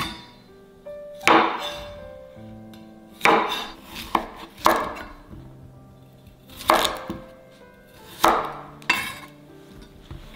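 Background music with a slow melody, over several irregularly spaced knife strokes: a chef's knife slicing through cucumber and striking a wooden cutting board.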